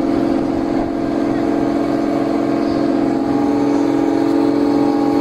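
Fishing boat's engine and deck machinery running steadily during net hauling: an even drone with a regular low throb about three times a second.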